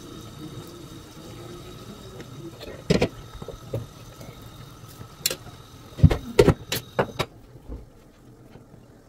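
Kitchenware clatter on a karahi: a sharp knock about three seconds in with a few lighter taps, another about five seconds in, then a quick cluster of loud knocks as a glass lid is set on the pan. Under it a steady low kitchen hum cuts off suddenly near the end.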